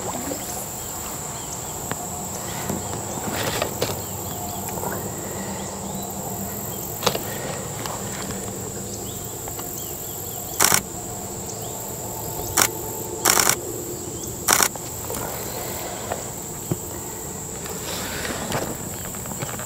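Steady high-pitched drone of insects, with a few sharp knocks in the second half, some in quick succession.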